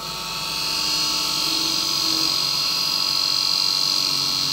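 Lathe tool cutting the tenon on a spinning wooden turning, a steady high-pitched squeal over the lathe motor's hum.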